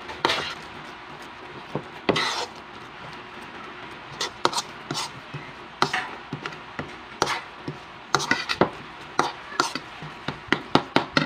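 A fork stirring and mashing a thick patty mixture in a bowl, the fork clicking against the bowl at irregular moments and tapping quicker and more often in the last few seconds.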